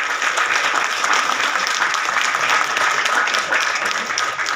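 Theatre audience applauding, with many hands clapping at a steady level.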